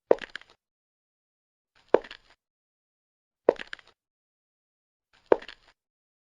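High-heeled shoes walking slowly: four footsteps about one and three-quarter seconds apart, each a sharp heel click followed by a few lighter taps.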